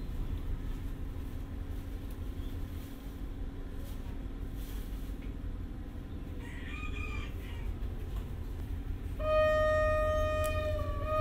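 A train horn sounds one long steady note near the end, the loudest thing here, dipping slightly in pitch before it stops. Earlier, over a steady low rumble, a rooster crows once.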